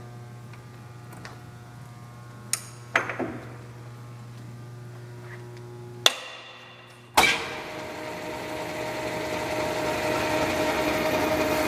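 South Bend Heavy 10 lathe running slowly in back gear, a steady motor hum with faint regular ticking and a few metallic clanks. About six seconds in the motor is switched off and the hum stops; a second later it starts again with a clunk and the running noise rises steadily as the spindle comes up to speed.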